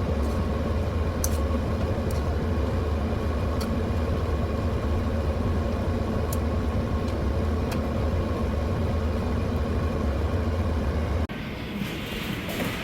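Steady low rumble of a moving car, heard from inside. It cuts off abruptly about a second before the end, and a lighter, higher sound takes over.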